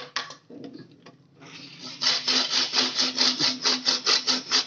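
A hand tool rasping on pipe in quick, even strokes, about five a second, starting about two seconds in after a few scattered knocks and scrapes.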